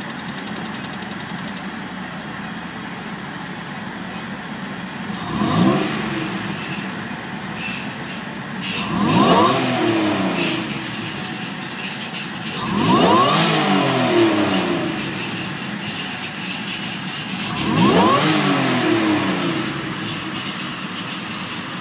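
Acura NSX engine idling and blipped four times, each rev climbing quickly and then falling back to idle; the first blip is the shortest.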